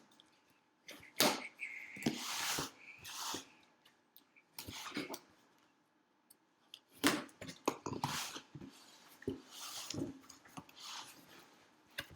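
A cardboard shipping box being cut open and its flaps and packing pulled apart: irregular scraping, tearing and rustling, with a short pause in the middle.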